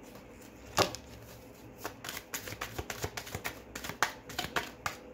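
A deck of tarot cards being shuffled by hand: one sharp snap about a second in, then a quick, uneven run of card flicks and slaps from about two seconds on.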